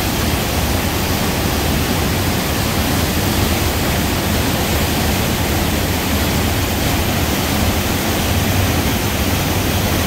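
Waterfall pouring into a plunge pool with churning whitewater: a loud, steady rush of falling and tumbling water.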